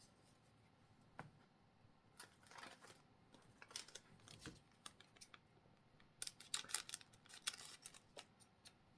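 Soft, scattered clicks and rustles of Pokémon trading cards and booster packs being handled, getting busier for the last few seconds.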